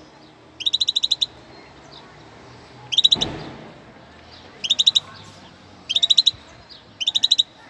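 European goldfinch calling in five short bursts of rapid, evenly spaced high twittering notes, each burst under a second. A brief rush of noise comes with the third burst, about three seconds in.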